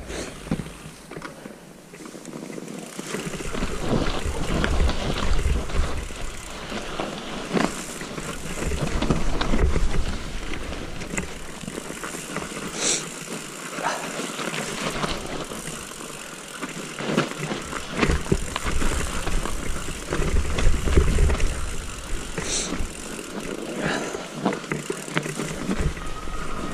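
Mountain bike ridden downhill on a snow-covered forest trail: tyres hissing and crunching through snow and the bike rattling over bumps, with low wind rumble on the action camera's microphone that swells several times. Sharp knocks from the bike come near 8, 13 and 22 seconds.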